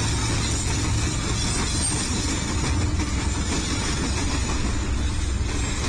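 Several Union Pacific diesel locomotives passing close by under power: a steady low engine rumble with the noise of wheels on rail.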